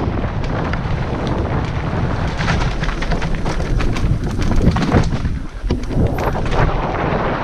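Mountain bike descending a rough, rooty trail: wind buffeting the microphone, tyres rumbling over dirt and roots, and the bike rattling with many quick knocks.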